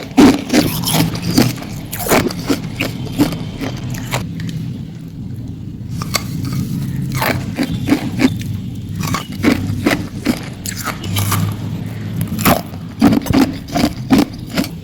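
Hard ice being bitten and crunched close to the microphone: clusters of sharp cracks and crunches, easing off for a couple of seconds near the middle before picking up again.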